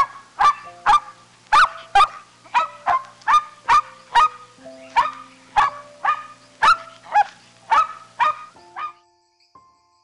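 A fast series of sharp animal calls, about two a second and each dropping in pitch, over soft background music; the calls stop about nine seconds in.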